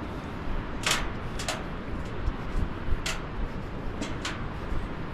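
Footsteps on the metal deck of a pedestrian suspension bridge: about five short, irregularly spaced clicks over a steady low rumble.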